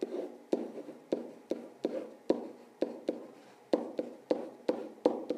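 Stylus tapping and clicking on an iPad touchscreen while handwriting, about two sharp taps a second.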